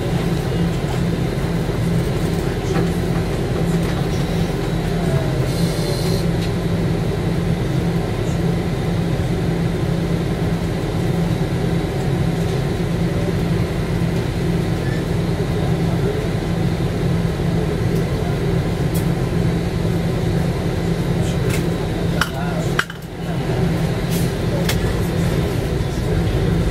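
Tobu bus engine and road noise heard from inside the cabin while driving: a steady low drone, with a brief dip in level near the end and a few faint clicks and rattles.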